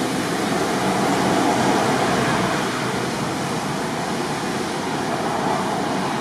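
Hot steel rebar melting a hole through the wall of a plastic jug, with a steady hissing noise that swells as the rod goes in and eases near the end.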